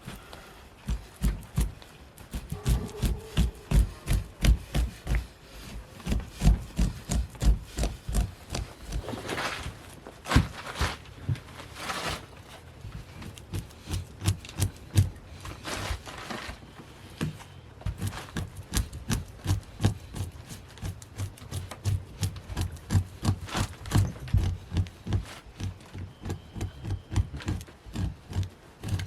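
Repeated scraping strokes of a hand fleshing tool pushed along a hide laid over a pole, about two strokes a second, mostly dull with a few brighter, sharper scrapes in the middle: the membrane is being scraped off the hide's flesh side.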